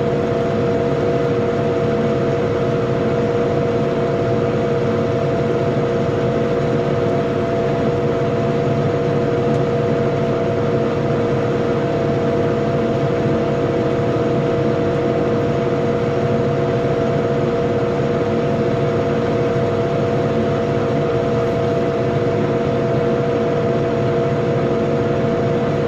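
Tractor running steadily while driving a rotary power harrow, a constant rumble with a steady whine over it.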